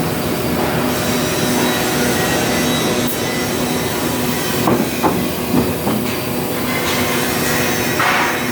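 CNC drilling machine running while drilling a 16 mm plate: a steady mechanical hum with a constant tone. A few short knocks come about five seconds in, and a brief hiss near the end.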